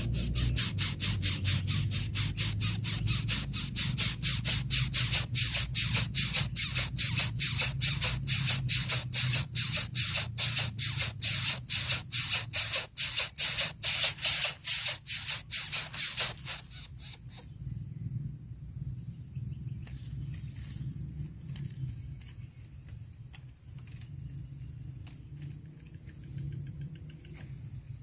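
Insects calling: a fast series of raspy pulses, about three or four a second, that cuts off abruptly about two-thirds of the way through, over a steady high-pitched cricket-like trill that carries on to the end.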